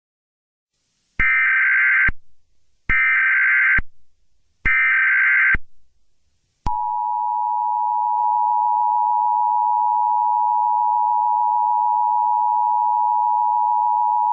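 Emergency Alert System tones. First come three short, buzzy SAME header data bursts, each just under a second long. About six and a half seconds in, the steady two-tone EAS attention signal starts and holds.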